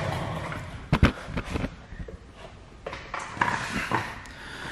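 Handling knocks and clicks: one sharp knock about a second in, a few lighter clicks right after it, and more light taps near the end.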